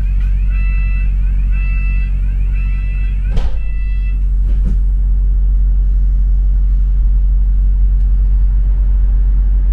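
Bus engine running with a steady low hum inside the cabin, while an electronic warning tone beeps about once a second for the first four seconds. A sharp knock sounds a little after three seconds in.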